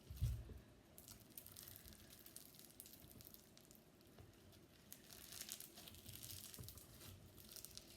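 Faint crackling and clicking of slime being squeezed and worked by hand, with a soft low thump just after the start.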